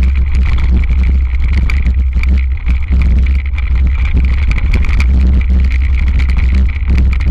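A hardtail mountain bike riding fast over a rough dirt trail, heard from a camera mounted on the rider or bike: a heavy, constant low rumble of wind and vibration on the microphone, with many quick rattles and clicks from the bike jolting over the ground.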